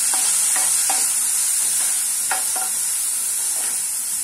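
Chopped vegetables and green peas frying in oil in a pan, stirred with a wooden spatula: a steady high sizzling hiss, with half a dozen short scrapes and taps of the spatula against the pan.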